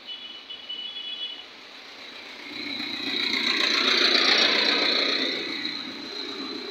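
Road traffic heard from a moving vehicle: a faint high-pitched horn sounds during the first second or so. Then a passing vehicle's noise swells to a peak and fades over about three seconds.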